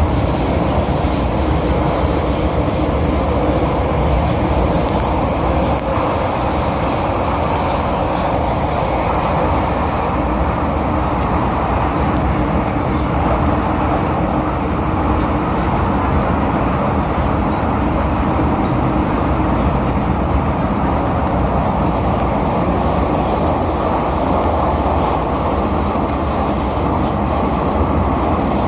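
Interior running noise of an MTR M-Train car, first-generation 1979 CM Stock, travelling between stations: a steady rumble of wheels on rail and traction equipment. A higher hiss over it eases off about a third of the way through and returns near the end.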